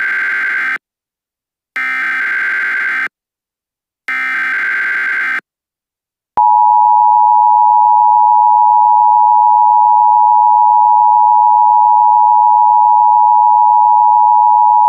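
Emergency Alert System SAME header: three blasts of screeching digital data tones, each just over a second long and about a second apart, followed about six seconds in by the steady two-tone EAS attention signal (853 and 960 Hz played together). This is the tone sequence that opens an emergency alert message.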